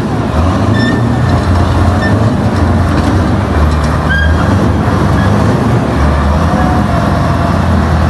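Tamoyo tank's diesel engine running steadily as the tank rolls slowly forward on its tracks, with a few brief high squeaks.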